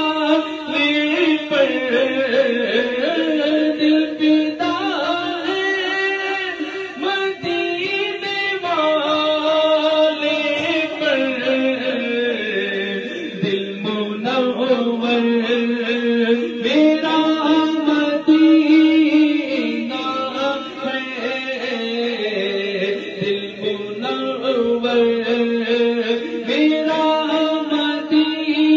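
A man sings an Urdu naat (Islamic devotional poem) into a microphone, drawing out long held notes that slide from pitch to pitch, with no clear words.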